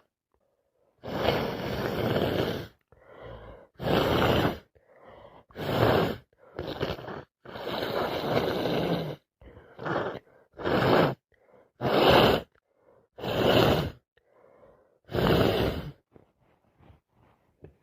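A woman with a heavy wet cold blowing her nose hard again and again: about ten loud breathy bursts, most about half a second long and two lasting over a second.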